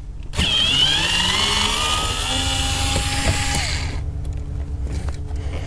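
Cordless electric screwdriver running as it backs out a screw from the center console's rear bracket: a motor whine that rises in pitch as it spins up, holds steady, and stops about four seconds in.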